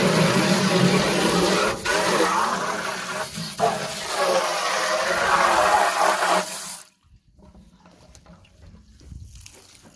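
Water rushing and splashing steadily, cutting off suddenly about seven seconds in.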